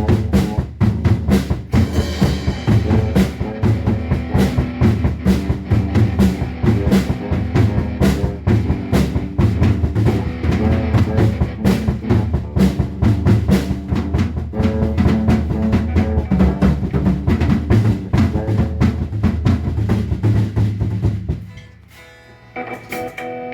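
Band music driven by a drum kit, with kick and snare beating steadily over low bass notes. The playing stops suddenly near the end, and a held chord rings out.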